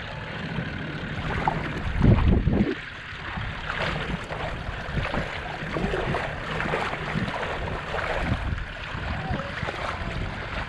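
Toyota LandCruiser 79 wading slowly through shallow water towing a caravan: water washing and swishing around its wheels over a steady low engine rumble, with wind buffeting the microphone, strongest in a gust about two seconds in.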